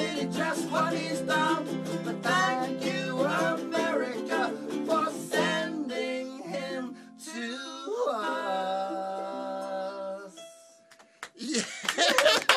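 Background song with plucked strings and a singing voice, ending on a long held note, then a brief pause before speech begins near the end.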